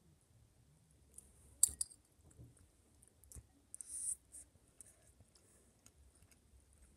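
Spoon clicking against a bowl of rice, two sharp clicks a little under two seconds in, then a short hissy scrape about four seconds in as a spoonful is taken, with small ticks in between.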